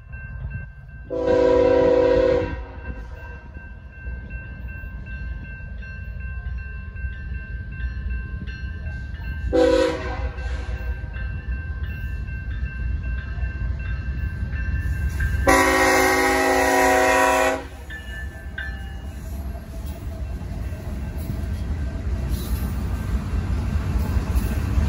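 Air horn of BNSF ES44C4 diesel locomotive 3254, leading a freight train, sounding three blasts: a long one about a second in, a short one around ten seconds, and another long one around fifteen seconds. Under it the grade-crossing warning bell rings steadily, and the low rumble of the approaching locomotives builds toward the end.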